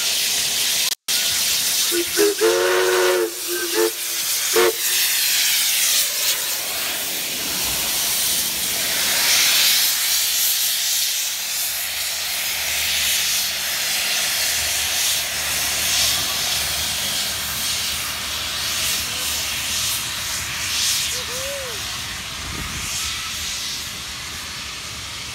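NSWGR 59 class steam locomotive 5917 sending out a loud, steady hiss of steam, its safety valve blowing off as it gets under way. Its steam whistle sounds about two seconds in, followed by two brief toots.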